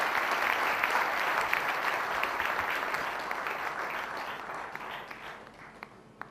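Audience applauding: dense clapping that dies away gradually over the last couple of seconds, with a single late clap near the end.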